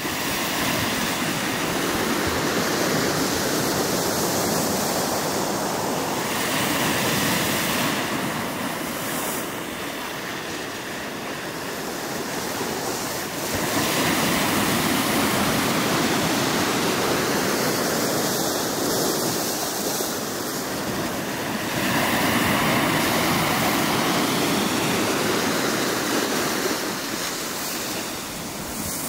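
Lake Michigan waves washing in through slush ice onto a frozen shore, swelling and easing in three long surges.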